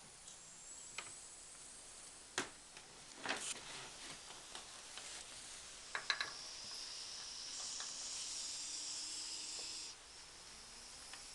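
Golden retriever snoring in its sleep: a long, high, hissing breath that stops suddenly, after a few short clicks.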